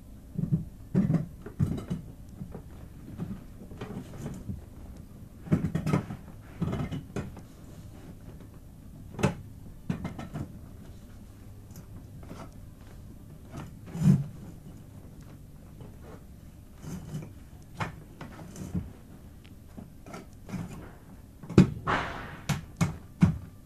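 Irregular knocks and clunks of canvas dog cot frame parts being handled and fitted together during assembly, with a quicker run of sharper knocks near the end.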